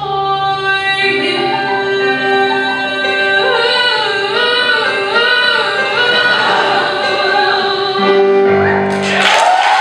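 A woman singing the song's final notes in a long held belt, her voice wavering with vibrato in the middle. Cheering and applause break out just before the end.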